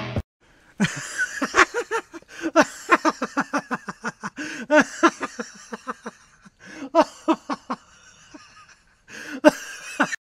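A person laughing hard in rapid, repeated bursts, pausing briefly about six seconds in and again near the end before one last burst.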